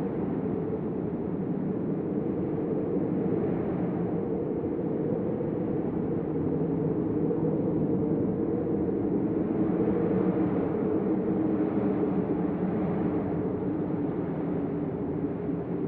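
Deep hurricane-force storm wind blowing steadily, a low rushing sound that swells and eases slowly.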